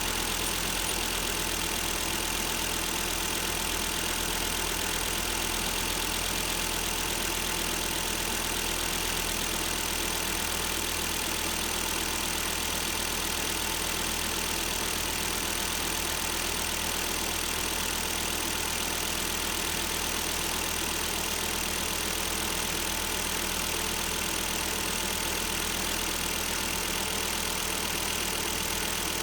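Volvo XC70 2.5T's turbocharged five-cylinder engine idling steadily, run so that its intermittent abnormal noise can be listened for.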